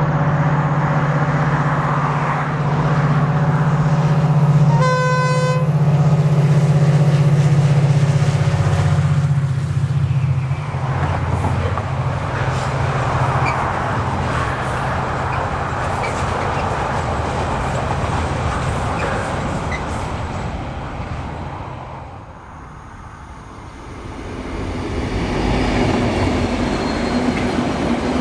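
GM 071 class diesel-electric locomotive passing with a loaded steel train: its EMD two-stroke engine hums strongly, with one short horn blast about five seconds in. The engine fades as the long rake of laden steel-carrying wagons rolls by with a steady rumble and clatter on the rails. After a brief lull near the end, locomotive engine sound rises again.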